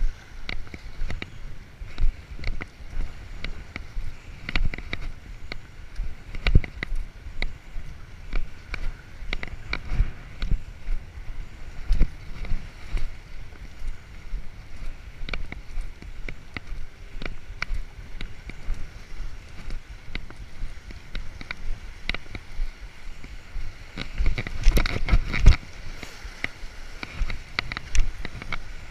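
Footsteps on the concrete and stone of a harbor breakwall, over wind buffeting the microphone and lake water washing against the rocks. Near the end comes a burst of louder knocks and scuffs as the walker climbs onto rough boulders.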